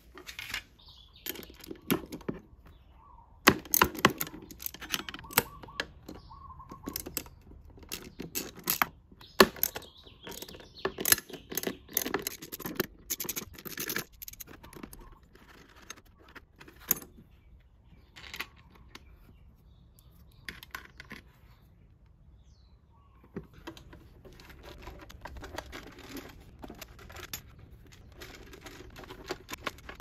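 Vespa LX front fork parts being handled and fitted: a run of sharp metal clinks and knocks, thickest in the first half, then scattered knocks and the rustle of handling.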